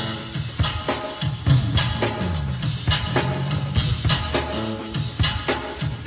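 Instrumental rock fusion music for drum kit and Fender electric bass: a slap bass line moving in the low register over a steady drum beat.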